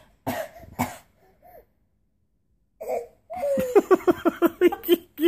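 Two short coughs within the first second. After a pause, a run of quick laughter, about five pulses a second, in the last two seconds.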